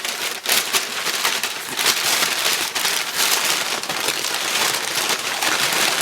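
Packaging crinkling and rustling as an item is unwrapped by hand, a dense, continuous crackle.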